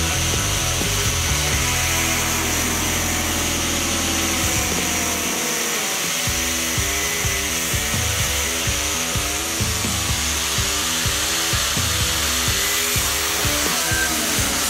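Metabo angle grinder with a thin cut-off disc cutting through a rusty flat steel bar, with background music that picks up a steady beat partway through.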